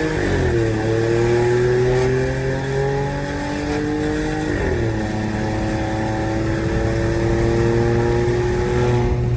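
Volkswagen Polo's 1.0 TSI turbocharged three-cylinder engine, Stage 2 tuned with a larger intake, downpipe and exhaust diffuser, pulling under acceleration. Its pitch climbs through each gear and drops at an upshift about half a second in and again about four and a half seconds in.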